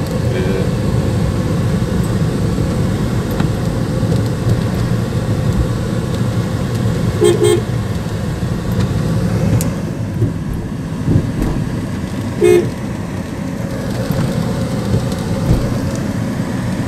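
Steady low rumble of a car driving on the road, with a vehicle horn tooting briefly twice, a little before halfway and again about five seconds later.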